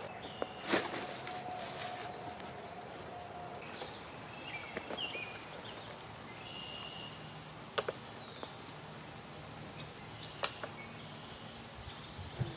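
Outdoor woodland ambience: a steady hiss with a few short high bird chirps and several sharp clicks or snaps, the loudest about a second in.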